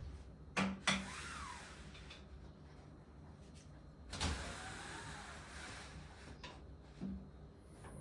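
A few sharp clicks and knocks, two close together near the start, one about halfway and one near the end, with faint sliding and scraping between them.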